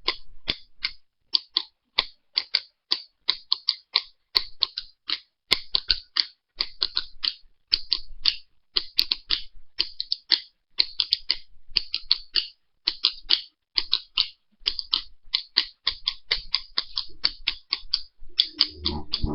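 Rapid, uneven clicking, several sharp high clicks a second, with a brief low thump near the end.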